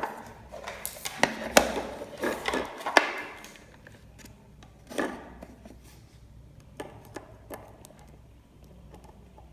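Clicks and knocks of a digital multimeter and its test probes being handled on a tabletop: several sharp clicks in the first three seconds, another knock about five seconds in, then a few faint ticks.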